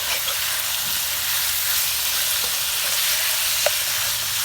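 Eel pieces and garlic frying in hot oil in a pan, with a steady sizzle and a few short ticks.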